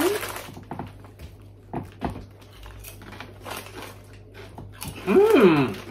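Foil crisp packet crinkling as a hand reaches in, with scattered crackles of potato crisps being handled and crunched. Near the end comes a brief, louder sound that falls in pitch.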